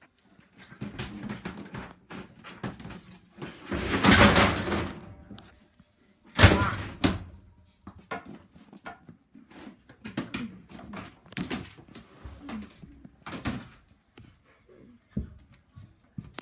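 A string of knocks and clatter from objects being handled, with a longer rush of noise about four seconds in and a sharp bang about six seconds in.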